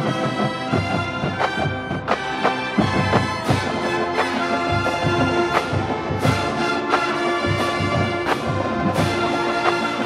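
College marching band playing, brass holding chords over the drumline. From about three seconds in, the drums hit a steady beat roughly every three-quarters of a second.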